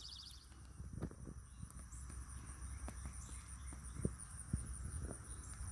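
Crickets or similar insects trilling in a steady, high, finely pulsed buzz. A few faint, soft knocks and rustles come from hands pulling up potato plants and working in the garden soil.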